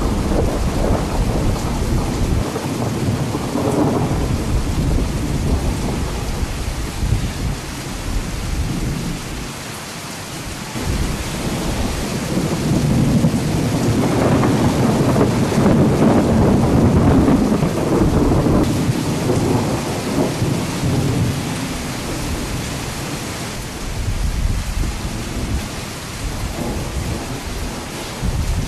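Thunder rumbling over a steady hiss of rain, in waves that swell and fade. The longest, loudest rumble comes about halfway through.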